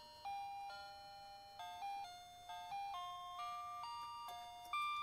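Background music: a simple melody of clear, held single notes stepping up and down.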